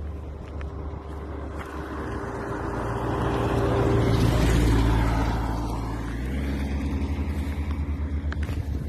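A road vehicle driving past: its engine and tyre noise grows louder to a peak about four and a half seconds in, then fades, its pitch dropping as it goes by.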